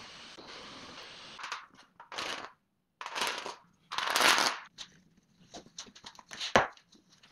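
A cordless drill boring into wood for about the first second and a half. Then come short wooden rustles and clacks as a tambour panel of purpleheart slats glued to a canvas backing is flexed and rolled up. The slats knock together in a quick run of clicks, ending in one loudest clack near the end.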